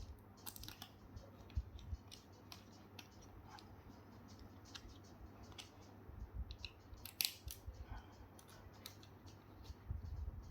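Small hand screwdriver driving the bottom-panel screws back into a plastic laptop case: scattered faint clicks and ticks of the tool on the screws, with a sharper click about seven seconds in and low handling bumps near the end.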